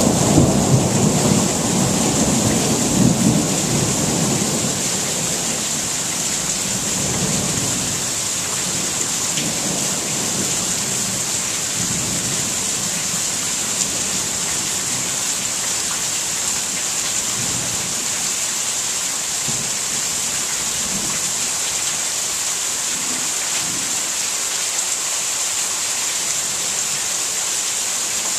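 Steady rain falling, with a rumble of thunder that dies away over the first several seconds.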